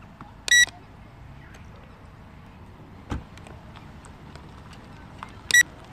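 Electronic beeper sounding two short, high-pitched beeps about five seconds apart. A single dull knock falls between them, about three seconds in.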